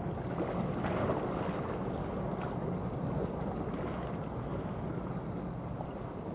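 Steady wind rumbling on the microphone over the wash of choppy sea water, with a faint low hum underneath.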